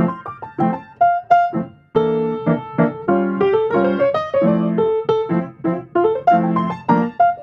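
Background piano music: a light melody over rhythmic chords, broken by a short pause about two seconds in.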